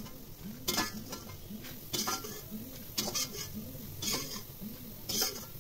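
A metal slotted spoon clinking against a stainless steel plate about once a second as fried soya chaap pieces are dropped onto it.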